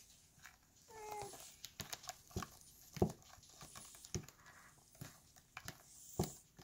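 Cat licking and grooming another cat close to the microphone: irregular wet tongue clicks and smacks, with one short, slightly falling squeak about a second in.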